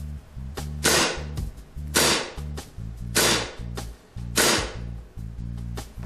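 KWA HK45 gas blowback airsoft pistol firing four shots about a second apart, each a sharp crack with a short hiss of gas behind it, over background music.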